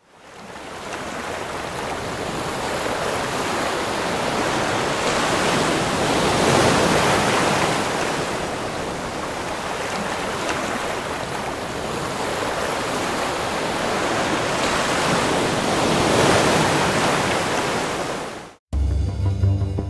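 Ocean surf: waves washing ashore in a steady rush that swells and eases, fading in at the start and cutting off abruptly near the end. Music with a low, steady tone takes over in the last second.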